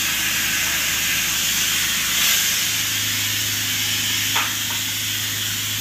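Steady hiss from a hose running into an open sewer drain. A low steady hum grows stronger about three seconds in, and a single short knock comes near the end.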